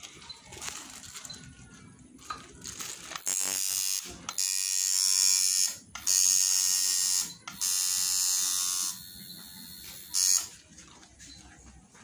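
Coil tattoo machine buzzing in runs of a second or so, stopping and starting several times as the needle is worked over the skin. It first starts about three seconds in and is off again near the end.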